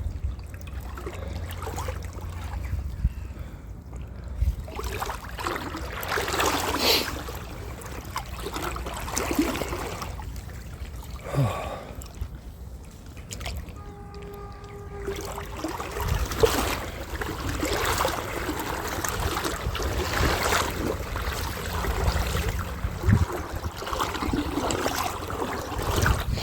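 Shallow river water splashing and trickling in irregular surges, as from wading or a magnet being dragged through it, over a low rumble of handling or wind noise.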